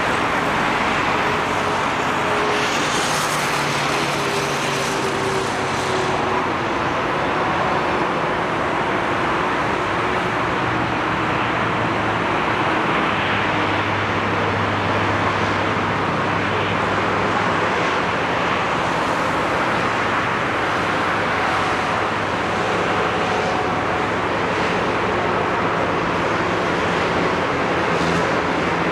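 Four-engined jet airliner (Boeing 747) on the runway, its engines giving a steady rushing jet noise with a low hum that shifts in pitch.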